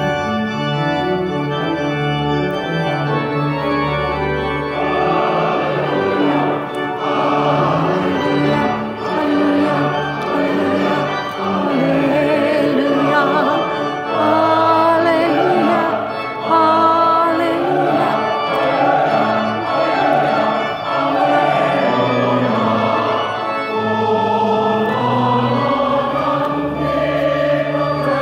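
Church organ playing, joined about five seconds in by a choir singing along with it.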